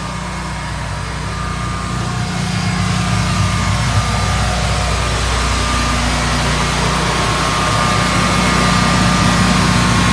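Heated pressure-washer rig with a diesel heater running steadily: a constant machine drone with a higher whine over it. It grows louder over the first few seconds, then holds steady.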